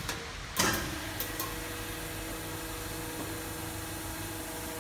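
Panel button clicks and a knock, then the hydraulic pump motor of a cold pressure welding machine starts and runs with a steady hum.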